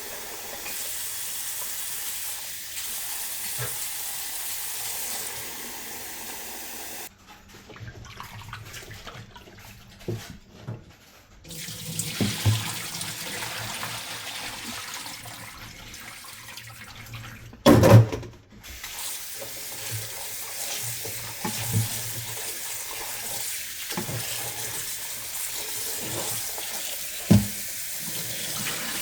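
Tap water running into a sink, shut off for a few seconds about a quarter of the way in, with scattered knocks and clatters, the loudest a little past halfway.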